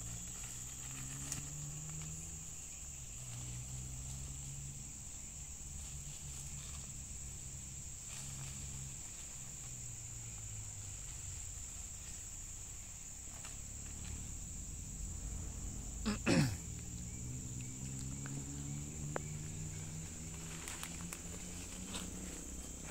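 Steady, high-pitched drone of insects in the plantation undergrowth. About sixteen seconds in, a loud, short call drops quickly in pitch, and near the end there are a few light crunches like steps on dry leaves.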